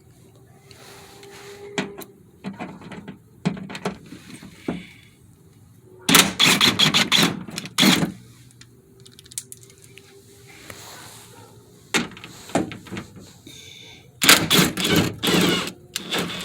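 Hand tools working the plastic fender-liner fasteners of a pickup: scattered clicks and knocks, with two bursts of rapid clicking about two seconds long, one near the middle and one near the end.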